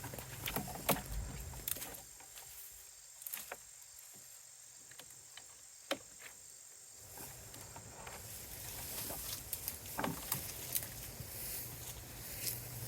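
Scattered clicks, taps and light knocks of wire and wood being handled while a ground blind is wired in place, over a low steady rumble that drops away for a few seconds in the middle.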